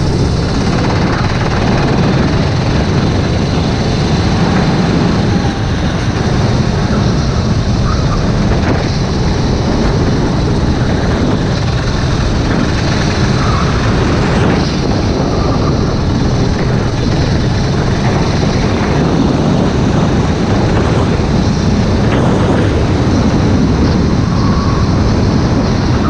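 Racing kart engine running under throttle, heard from the kart's own onboard camera, with wind and road noise mixed in.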